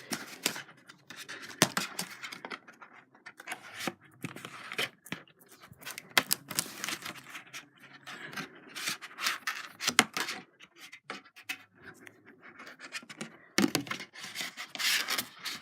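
Hands handling a DVD box set and its plastic cases: irregular scraping, rubbing and clicking.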